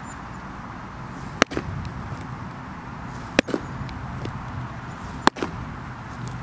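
Three sharp knocks about two seconds apart as baseballs are sent in low during catcher blocking drills, over a steady low rumble.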